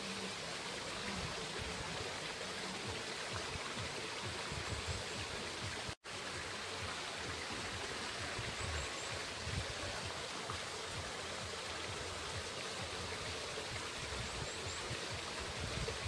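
Water running and splashing off a small wooden water wheel: a steady rush of water. It cuts out for an instant about six seconds in.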